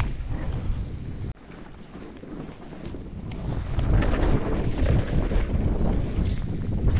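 Wind buffeting the camera microphone over the rumble of a Nicolai mountain bike's tyres on a dirt trail at speed. It drops quieter for about two seconds shortly after the start, then builds back up.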